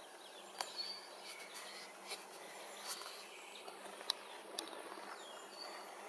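Woodland ambience: a steady, soft background hum and hiss with several short, sharp bird chirps and calls scattered through.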